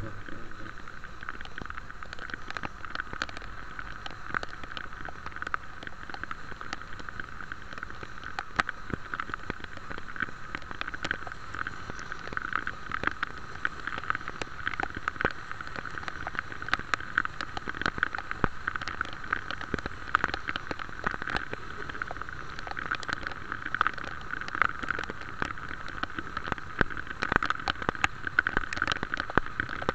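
Rain falling, with many drops pattering sharply close by over a steady hiss.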